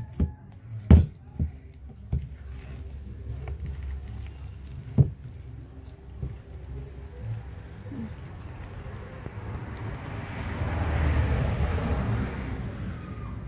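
Hands kneading and squeezing a soft mashed-potato mixture in a plastic bowl, with a few sharp knocks in the first few seconds. Near the end a rushing noise swells and fades.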